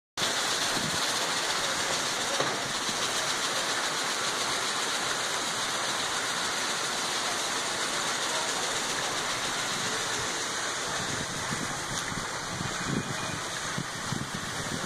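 Steady rushing of water running into a koi pond, like a small waterfall or pond filter outflow. From about ten seconds in, irregular lower splashes and gurgles join the rush.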